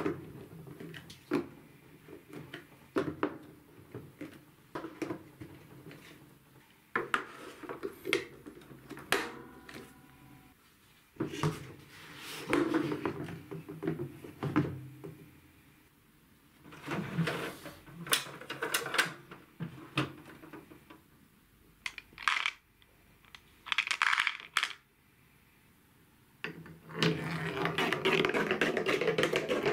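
Hard plastic TrixTrack building blocks and wave-slope track pieces being pressed and snapped together by hand: irregular clicks, taps and knocks. Near the end a ball starts rolling along the plastic wave track with a steady rumble.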